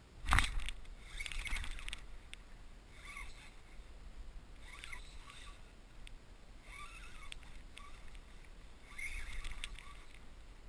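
Handling sounds aboard a plastic kayak while a hooked striped bass is fought on rod and reel: a loud sharp knock about a third of a second in, then short scratchy bursts every second or two.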